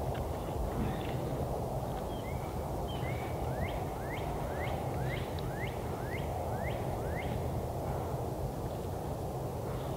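A bird calling a quick run of about ten short rising notes, roughly two a second, starting about two seconds in and stopping after about five seconds. Beneath it runs a steady low background noise.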